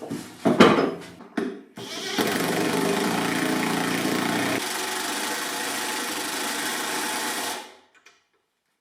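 A few knocks, then a power tool's motor runs steadily for about five seconds and cuts off suddenly.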